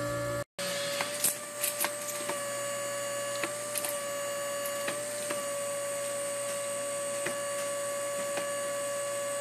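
Cookie-cutter forming machine running with a steady hum, with sharp metallic clicks scattered through it as its cylinder-driven clamps close around the bent steel strip. The sound cuts out briefly about half a second in.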